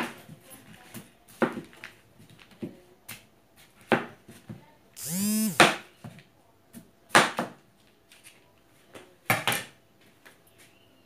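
Knife cutting through a pumpkin and knocking on the tabletop, with sharp separate strikes every second or so. About halfway through comes one short pitched sound that rises and falls.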